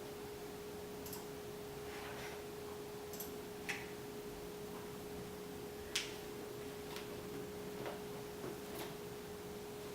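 A faint, steady whine at a single pitch, with a few soft clicks.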